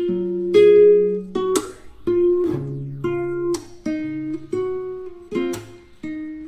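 Background music: chords strummed on a guitar, each fresh strum followed by ringing notes.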